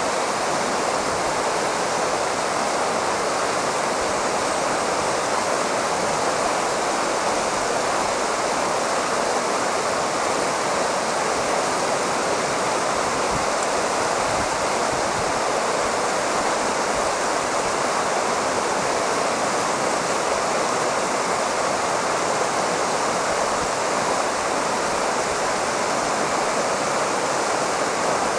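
Shallow stream running over stones and gravel, a steady even rushing of water.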